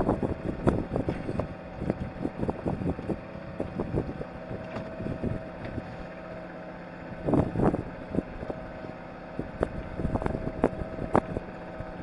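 Irregular knocks, clicks and clatter of gear being handled on a moored trimaran's deck, with a louder burst of knocking about seven and a half seconds in, over a steady engine hum.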